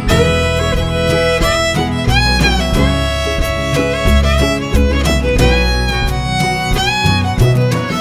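Instrumental break of a bluegrass-style song: a fiddle plays the melody with sliding notes over guitar and a bass line.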